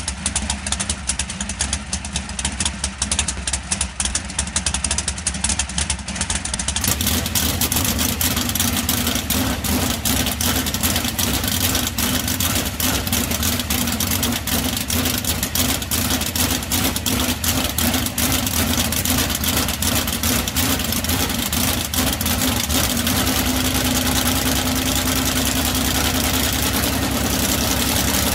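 A 410-cubic-inch Gaerte V8 sprint car engine running at idle through its exhaust headers during a pre-race engine check, its firing rapid and steady. It gets louder about seven seconds in and holds there.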